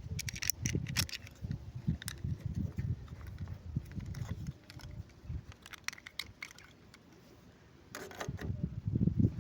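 Small plastic toy pieces and packaging being handled: irregular light clicks and taps with low bumps, easing off briefly before a flurry of clicks near the end.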